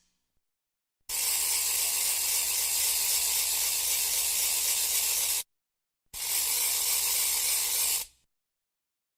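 Two stretches of steady hissing noise, the first about four seconds long and the second about two, each starting and stopping abruptly.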